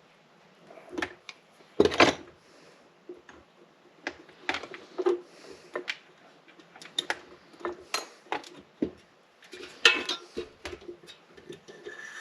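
Irregular metallic clicks, taps and clinks of small tools and parts as the wires are worked loose from their clips on an old furnace combustion-fan motor. A loud knock comes about two seconds in, and a rattle of clinks follows near ten seconds.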